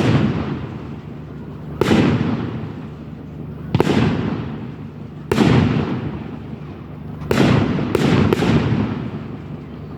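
Fireworks bursting overhead: a string of loud bangs about every two seconds, each trailing off in a rolling echo, with three in quick succession near the end.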